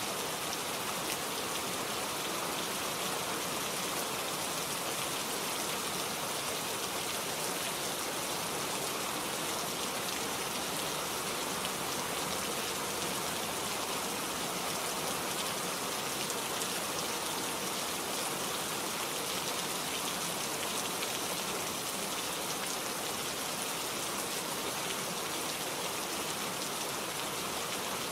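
Steady rain falling in a forest, a dense even hiss of drops pattering on leaves and ground.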